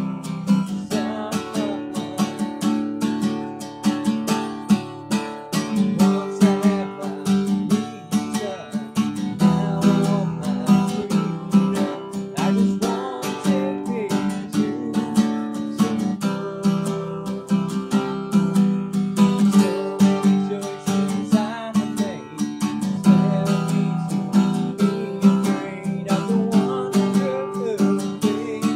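Cutaway acoustic guitar strummed steadily in chords, with a man singing along, recorded through a poor-quality microphone.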